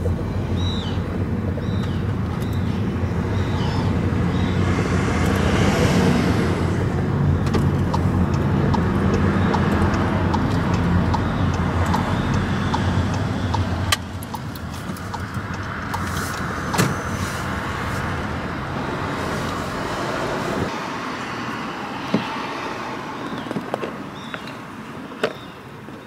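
Car driving through town, heard from inside the cabin: steady engine and road rumble. It drops to a quieter level about halfway through, and the deep rumble fades out near the end, with a few light clicks.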